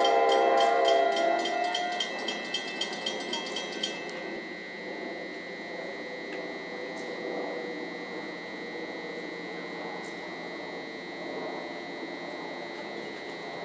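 Nathan K5LA multi-chime locomotive horn sounding a loud chord for about two seconds, then dying away in a pulsing tail by about four seconds in. After that come the faint steady rumble of the approaching electric train and a thin high whine.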